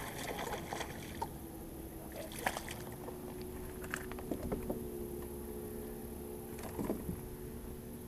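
A steady motor hum from a bass boat, shifting slightly in pitch a few seconds in. Over it come scattered clicks and knocks as a bass is reeled in and swung aboard onto the deck.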